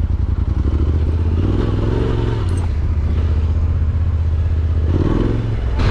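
Yamaha Tenere 700's parallel-twin engine, fitted with an Akrapovic exhaust, running steadily as the motorcycle is ridden.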